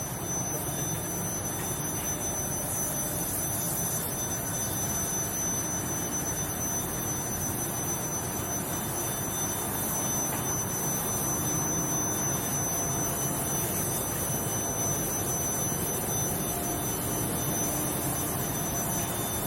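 Steady industrial machinery noise from an induction-heating hot-rolling line: a continuous hiss and rumble with a constant high-pitched whine over it.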